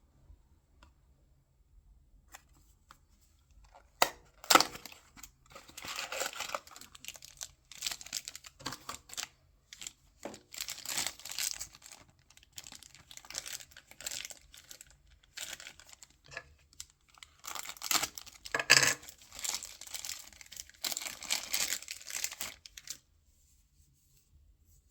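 Blind-box packaging being torn open and crinkled by hand, in a run of rustling bursts that starts about four seconds in and stops shortly before the end, with a couple of sharp clicks among them.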